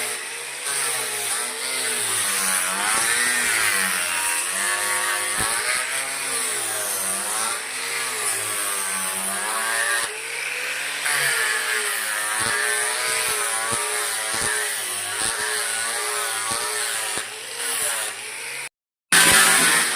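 Electric woodworking power tool running under varying load, its motor pitch sagging and recovering every second or two as it is worked through wood, with a few clicks. The sound drops out briefly near the end.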